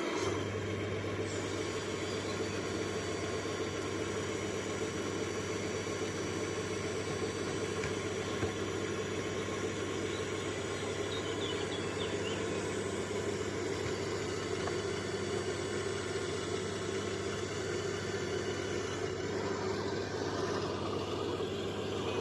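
Diesel engine of a heavy earthmoving machine running steadily at an even speed.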